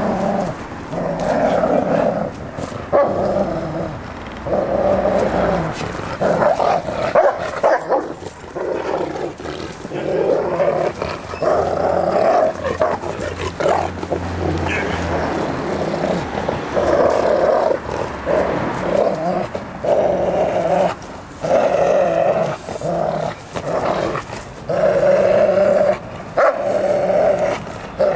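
Bernese Mountain Dog growling over and over in rough play-fighting, each growl lasting about a second with short breaks between. It is play growling, not aggression.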